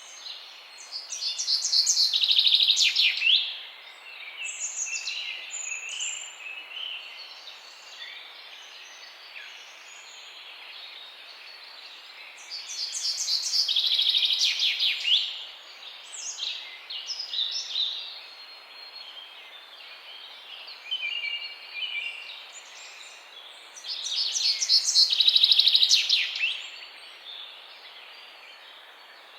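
Songbirds chirping. A loud, rapid burst of song comes three times, about every eleven seconds, with softer scattered chirps and calls in between.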